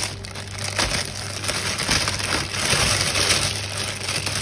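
A plastic bag of mixed nuts being handled, the plastic crinkling and rustling in a dense, continuous crackle.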